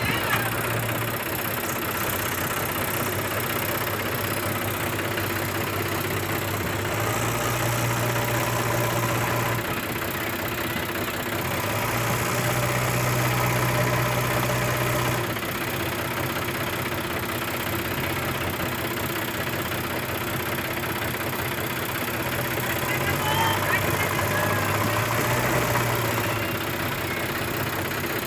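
JCB 3DX backhoe loader's diesel engine running steadily. Three times its note rises and holds for a few seconds, under load as the machine pushes on its bucket and loader arm to heave its front end up a bank.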